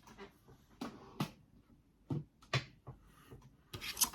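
Plastic DVD cases being handled, with a series of sharp clicks and clacks as cases are snapped shut and opened.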